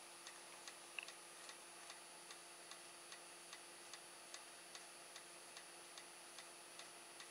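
Faint regular ticking, about two and a half ticks a second, over a low steady hum.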